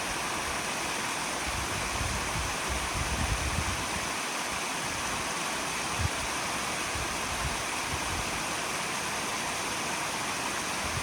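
A small countryside stream flowing, a steady rushing of water. Low irregular rumbles come through a few seconds in, and a brief low thump about six seconds in.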